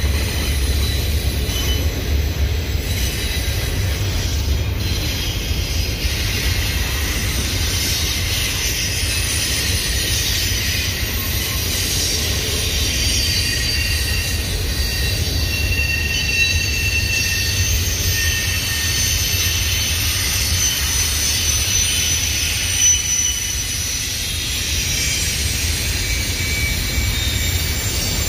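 Double-stack intermodal container train rolling past with a steady low rumble. Thin, high-pitched wheel squeals come and go over it, most of all through the middle.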